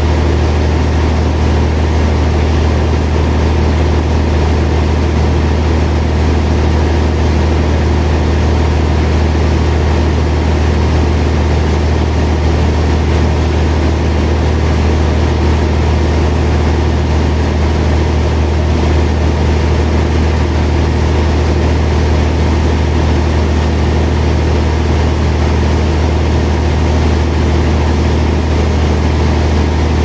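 Large band sawmill running steadily: a loud, even machine hum with a deep drone that holds the same pitch throughout.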